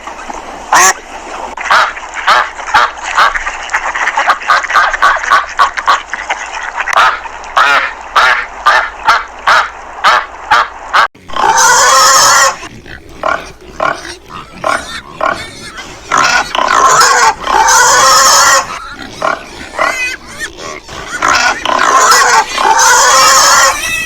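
A rapid run of short animal calls, then from about 11 s in, pigs squealing in long, loud, wavering squeals.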